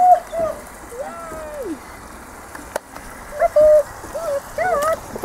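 Young vizsla puppies whining and yelping in a string of short, high calls, one longer whine falling in pitch about a second in. A single sharp click sounds near the middle.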